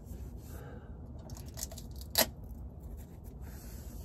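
Light scraping and clicking from hands working under a van's rear axle, with one sharp click about two seconds in, over a low steady rumble.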